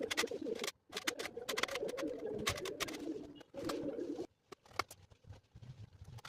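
A bird cooing, like a pigeon's coo, in three bouts with short gaps between them, with sharp clicks over it; it stops a little after four seconds, leaving faint scattered clicks.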